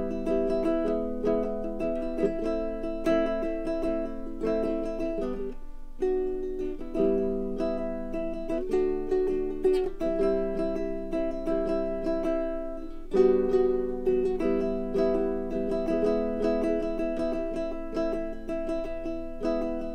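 Background music: a baritone ukulele playing plucked notes and chords.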